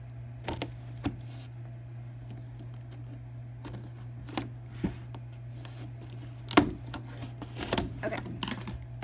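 A cardboard box being handled and one of its sides worked open, with scattered clicks, taps and scrapes. The loudest come about two-thirds of the way through and again a second later, over a steady low hum.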